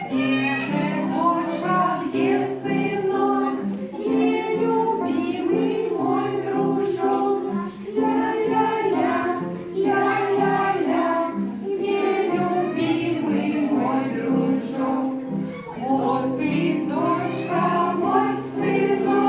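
A group of young children singing a song together, with women's voices among them, over a musical accompaniment.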